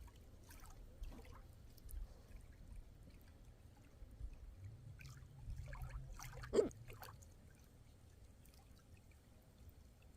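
Small waves lapping and splashing gently at the water's edge, with a low rumble underneath. One short, louder sound stands out about six and a half seconds in.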